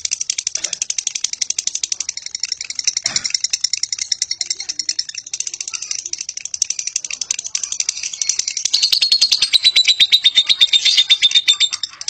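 Fischer's lovebird in a long 'ngekek' chatter: an unbroken run of very fast, high, rattling notes, many per second. It grows louder about nine seconds in, with a thin steady whistle running through the chatter.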